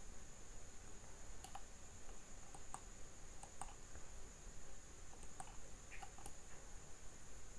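Faint computer mouse clicks, several of them at irregular intervals, over a steady high-pitched whine.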